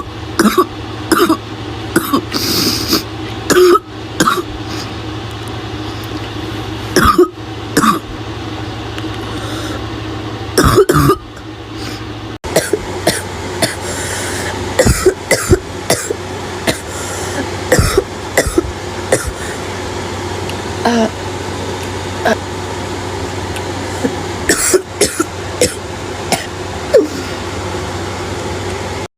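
A girl coughing over and over with a harsh, barking cough: loud fits in the first twelve seconds, then shorter, softer coughs scattered through the rest, over a steady low background hum.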